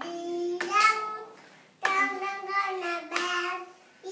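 A toddler singing in short phrases of held notes, with a brief pause just under two seconds in.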